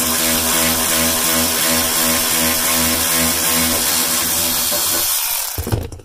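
Cordless power tool with a 7 mm socket on an extension running steadily to back out a dash panel screw, its motor giving an even hum. It stops about five seconds in, followed by a brief knock.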